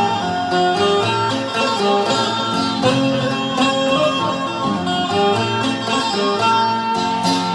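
Electric Indian banjo (bulbul tarang), a keyed plucked-string zither, playing a melody through an amplifier, with quick note changes over held low notes.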